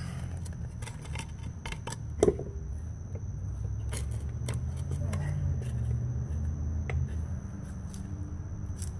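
Wooden blocks and a steel brake drum being shifted and set by hand: scattered light clicks and scrapes, with one sharper knock about two seconds in, over a steady low hum.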